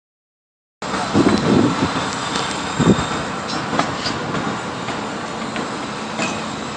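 Building construction site din: a steady machinery rumble with scattered knocks and clanks. It starts abruptly about a second in.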